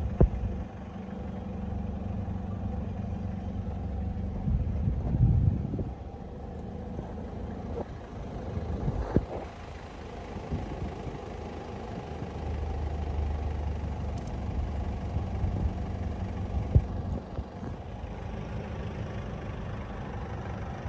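Low, steady rumble of an idling engine, louder for a moment about five seconds in, with a few sharp clicks.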